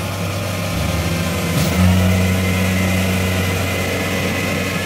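Rice combine harvester's diesel engine running steadily as the machine works through deep, flooded paddy mud. About two seconds in, the engine note grows louder and holds there, just after a brief sharp click.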